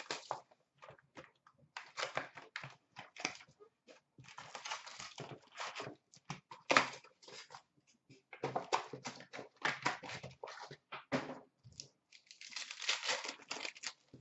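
Plastic wrappers of hockey card packs being torn and crinkled by hand, with cards handled: an irregular run of short crackles and rustles, denser near the end.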